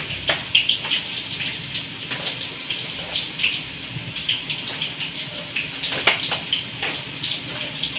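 French fries deep-frying in oil in a pan, sizzling and crackling steadily. A couple of sharp clicks about six and seven seconds in, as metal tongs turn the fries against the pan.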